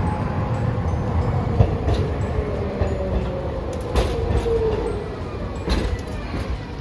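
Hiroshima Electric Railway streetcar running through a street junction: a steady rumble with a slowly falling whine, and a couple of sharp clacks as its wheels cross rail joints or points.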